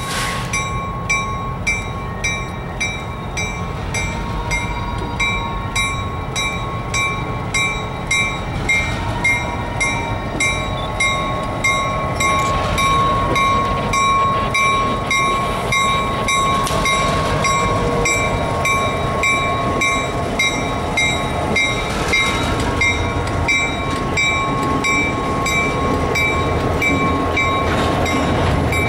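Norfolk Southern GP38-2 freight locomotive rumbling past at slow speed, its EMD 16-645 two-stroke diesel running under load. A bell clangs steadily about twice a second. In the second half the freight cars roll by on the rails.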